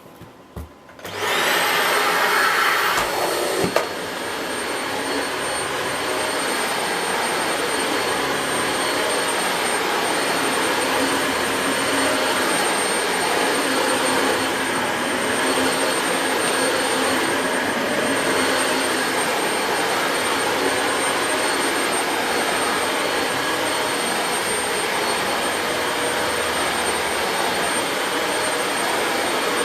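Dyson Light Ball Multi Floor upright bagless vacuum cleaner switched on about a second in, its motor spinning up with a rising whine. It then runs steadily with a high, steady whistle over the rush of air, the cleaner head's suction on its middle setting. There is a single click a few seconds in.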